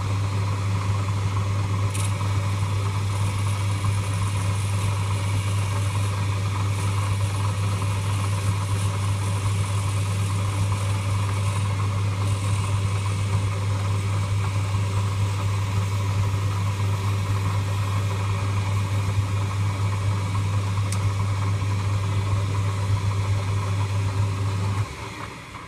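Lathe motor running steadily with a strong low hum, then switched off shortly before the end, the sound dying away.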